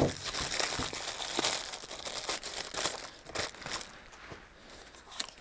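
Plastic courier mailer bag crinkling and rustling as it is pulled open by hand, dying down after about three and a half seconds.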